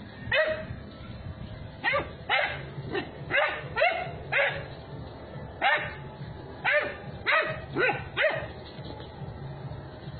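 A dog barking during rough play: about a dozen short, sharp barks in irregular clusters, with a couple of pauses between them.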